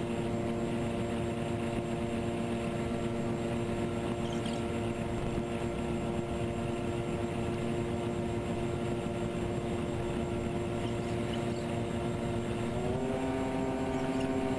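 Twin electric motors and propellers of a Twinstar RC plane running steadily, heard from the onboard camera with wind rushing over the microphone. Near the end the pitch rises as the throttle is opened and the current draw climbs.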